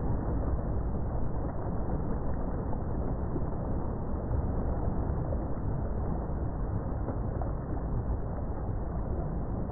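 A boat under way: a steady low engine rumble mixed with water rushing and churning in its wake.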